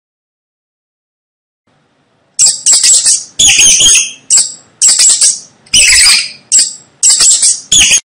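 Mouse squeaking: about nine shrill, high-pitched squeaks in quick succession, starting after about two and a half seconds of silence.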